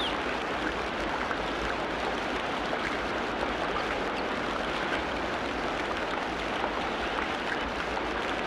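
A steady rush of running water, like a stream, even in loudness throughout, with a few faint, short, high notes here and there.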